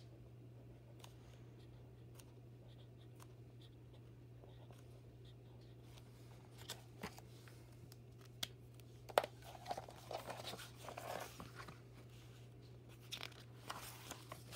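Felt-tip marker writing on a paper card in faint scratchy ticks, then paper handling: the card being moved and a picture-book page turned, with rustling and clicks that grow busier from about nine seconds in.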